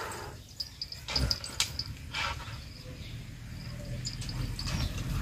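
Rustling and a few knocks around a cattle pen, with faint high chirps repeating several times a second.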